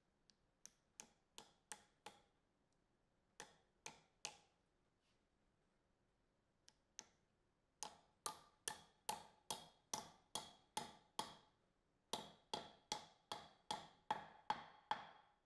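A hammer driving wooden wedges into the slots of a through-tenon in a hard maple sawhorse, each blow a sharp tap with a short ring. It starts with a few scattered light taps, then about halfway through comes a run of quicker, harder blows at about two to three a second. A second such run follows after a short pause.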